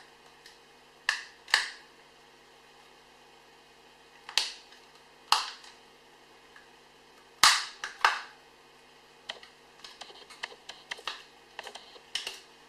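Plastic case of an e-ink electronic price tag being pried open, with sharp plastic snaps as its latches let go. The loudest snap comes about halfway through, and a run of small clicks and rattles follows near the end.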